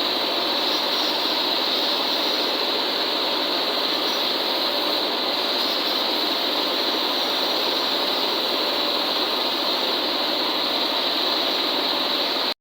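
Steady, unchanging mechanical running noise, a dense even whir with no rhythm or change in pitch, cut off abruptly at the end.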